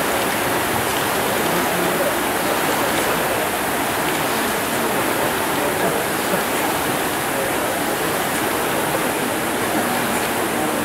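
Steady rushing whir of many rowing ergometers' fan flywheels spinning together during a race.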